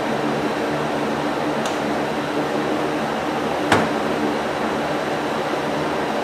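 Steady fan-like whir with a low hum, and one sharp click about three and a half seconds in.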